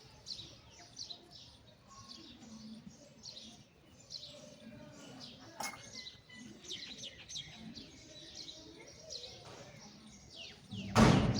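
Small birds chirping over and over in quick, high, falling notes, with a loud, short burst of noise near the end.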